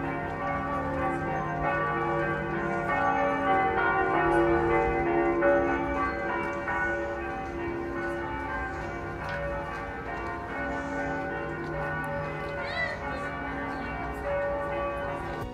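Church bells ringing, several bells sounding at once with long overlapping tones that hang and fade.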